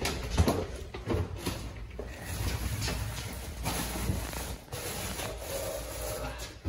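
Loaded move-in cart being pushed along a narrow hallway: scattered knocks, rubbing and scraping of the cart and its bags.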